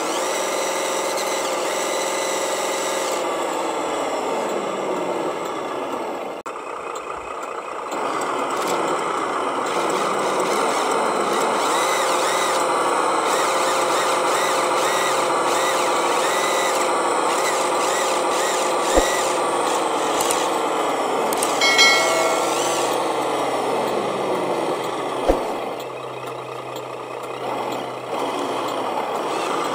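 Radio-controlled Scania truck's motor and gears whining as it strains through mud under a heavy load. The pitch drops as it slows about four seconds in and again near the end, with a few sharp clicks in between.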